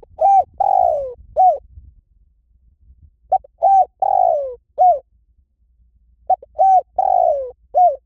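Spotted dove cooing: three identical song phrases about three seconds apart, each a brief opening note, a coo, a longer coo that falls in pitch, and a short closing coo.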